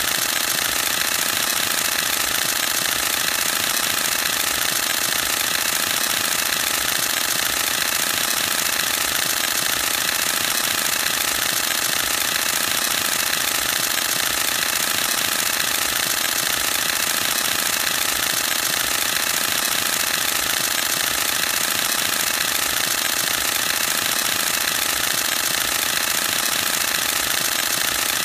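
Canon EOS-1D X Mark II DSLR firing a continuous high-speed burst: its mirror and shutter clatter in a rapid, unbroken run of clicks at a steady rate.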